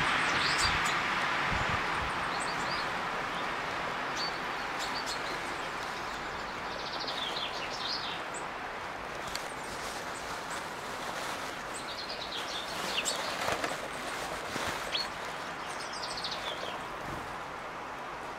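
Woodland ambience: a steady background hiss, slightly louder at the start, with small birds chirping and calling now and then throughout.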